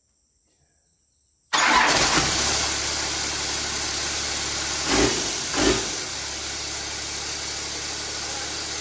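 Turbo diesel engine starting about one and a half seconds in, on its first start since being swapped in, then running steadily with two short revs around the middle.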